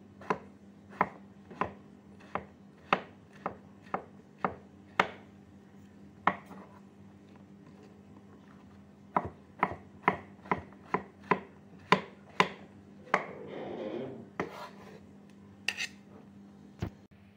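Cleaver slicing a mushroom and striking a thick wooden chopping board: evenly spaced knocks, a pause of a few seconds, then quicker chops. Near the end a brief scraping on the board, then a few last knocks.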